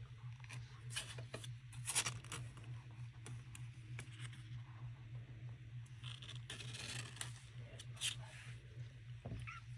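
Kittens' claws scratching and scrabbling on a cardboard box and the blanket inside it: scattered scrapes and clicks, the loudest about two seconds in, over a steady low hum.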